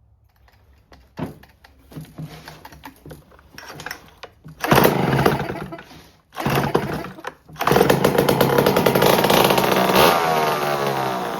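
Homelite C5 two-stroke chainsaw being pull-started after a dab of priming fuel: a few pulls, then it fires and runs in two short bursts, dying each time, then catches and runs for about three seconds before slowing down near the end.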